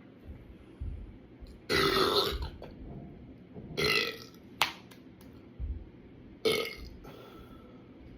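A person burping loudly three times, the first burp the longest at nearly a second, the others shorter. There is a sharp click between the second and third burps.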